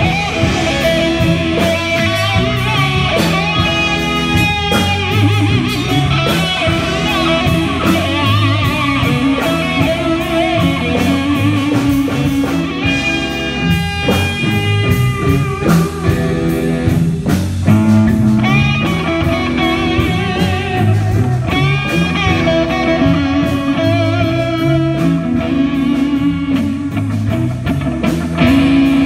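Live rock band with an electric guitar solo up front: sustained lead notes with wavering vibrato and quick runs, over bass and drums.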